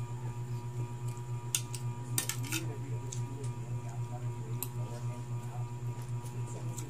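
A metal fork and spoon clinking and scraping against a plate several times while noodles are eaten, over a steady low hum.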